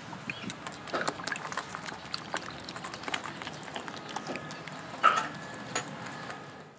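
Wooden chopsticks stirring egg yolks into flour dough in a stainless steel bowl: wet squelching with irregular clicks of the chopsticks against the bowl, and one louder clink with a short metallic ring about five seconds in.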